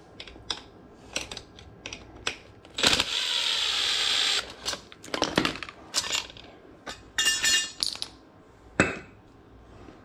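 A Makita 18V cordless impact driver runs for about a second and a half on a blower motor's mounting bracket, amid sharp metal clinks and clatter as the motor and the bracket's steel arms are handled and set on a wooden floor.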